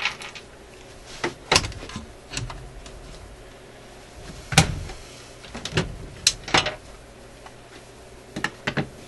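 Knocks and clatter of things being handled and set down on a workbench: about ten sharp knocks in irregular groups, the loudest a little under halfway through, over a faint steady hum.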